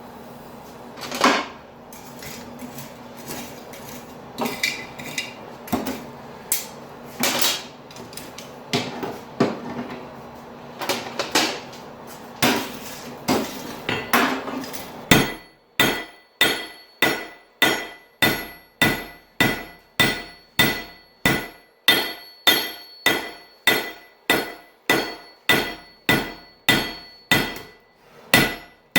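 Hand hammer striking a hot railroad spike on an anvil to taper it. The blows are scattered at first. About halfway through they settle into a steady beat of about two a second, with the anvil ringing under each blow.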